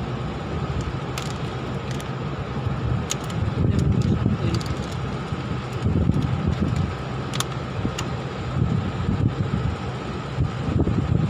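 Wind buffeting the microphone in uneven gusts over a steady background hum, with a few faint clicks.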